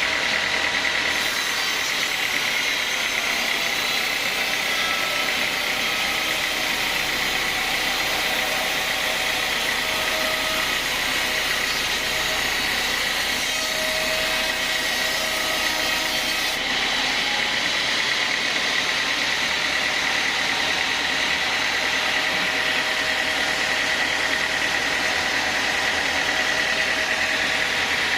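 Sawmill band saw cutting through a teak log, a steady whine over the hiss of the cut. About sixteen seconds in the hiss drops away and the saw runs on without cutting.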